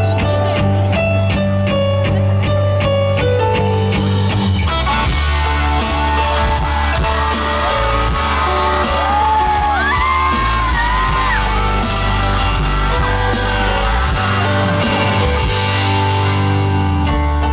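Live rock band playing a song intro: an electric guitar picks a repeated figure, then drums and bass guitar come in about five seconds in.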